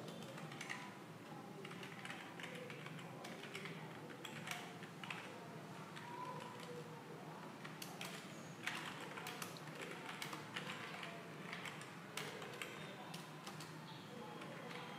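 Faint typing on a computer keyboard: irregular runs of keystroke clicks with short pauses, over a low steady hum.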